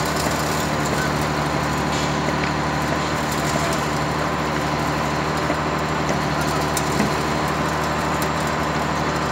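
Concrete pump's diesel engine running steadily at a constant pitch, with a faint knock about seven seconds in.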